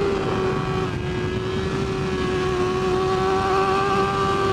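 A 2009 Chevrolet Duramax LMM 6.6-litre V8 turbodiesel pickup pulling under throttle on the road. It runs with a steady whine over a low rumble.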